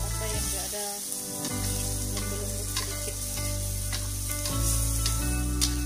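Chili sambal paste with petai beans sizzling in a wok, with a spatula stirring and scraping through it several times, over steady background music.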